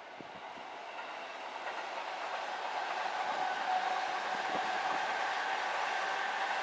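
A train approaching on the tracks, its running noise growing steadily louder, with a steady high whine over it and a few faint wheel clicks.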